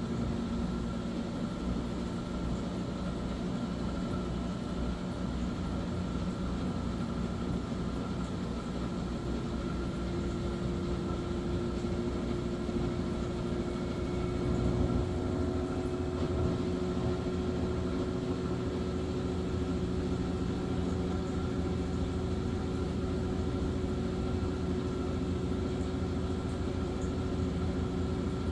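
Maytag washing machine running: a steady motor hum with a low rumble and a thin whine, the rumble shifting slightly about halfway through.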